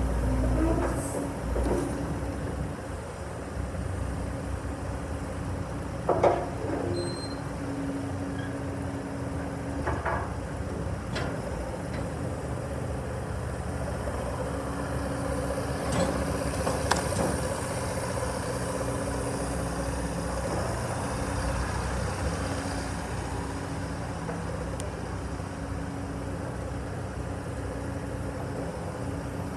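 Terex TC125 hydraulic excavator's diesel engine running steadily, with several short metallic knocks, the loudest about six seconds in.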